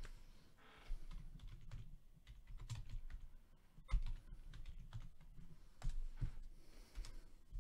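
Faint, irregular typing and clicking on a computer keyboard, with a few soft knocks.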